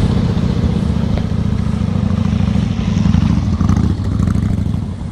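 Motorcycle engine running steadily at low revs, close to the microphone.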